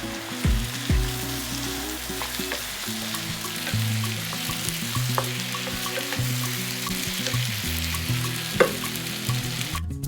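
Food frying in hot oil in a pan, a steady sizzle with a few sharp clinks; the sizzle cuts off suddenly just before the end.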